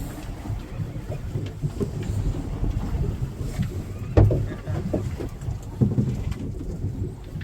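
Wind buffeting the microphone on a small fishing boat at sea, a steady low rumble broken by a few knocks, the loudest about four seconds in.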